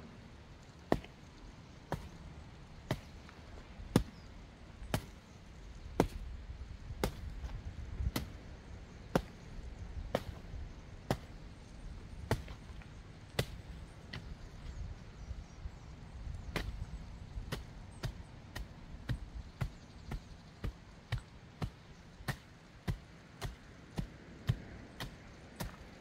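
A long-handled tool striking and crushing spent coal-briquette ash on the ground in repeated dull blows, about one a second at first, then quicker, around two a second, from about two-thirds of the way through.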